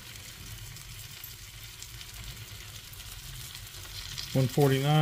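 Cheddar bratwursts, some split open, sizzling steadily in their rendered fat on the flat cooking plate of a Blackstone E-Series electric griddle.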